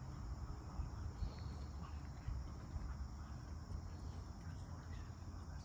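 Outdoor summer ambience: a steady chorus of crickets and other insects over a fluctuating low rumble, with no distinct loud events.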